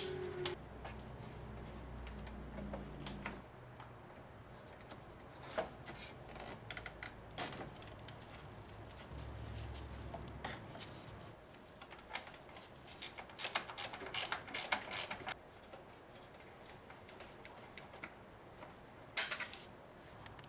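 Scattered clicks and clinks of hand tools on metal, with a run of quick clicks about two-thirds of the way through and a short clatter near the end.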